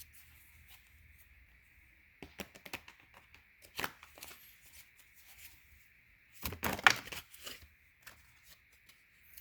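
Tarot cards being handled: a scatter of short papery clicks and rustles as cards are drawn and laid down, with a louder flurry about two-thirds of the way through.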